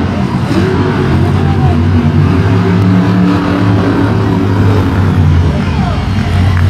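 Monster truck engine running hard with a deep, steady note.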